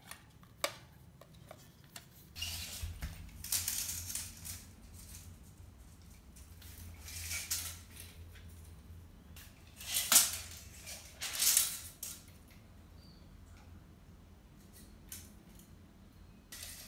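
A steel tape measure being handled: a few sharp clicks, then several scraping, hissing rushes as the blade is drawn out and worked along a tiled floor. The two loudest rushes come about ten and eleven and a half seconds in.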